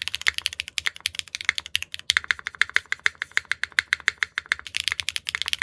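Fast typing on a Neo65 Core Plus mechanical keyboard fitted with HMX PEI Bumblebee linear switches, a quick run of clacky keystrokes with a short pause about two seconds in.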